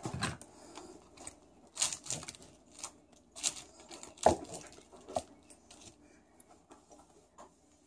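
Intermittent crackling and rustling of a knife cutting slices from a crusty baguette in a paper bag, with a few sharper knocks about four and five seconds in.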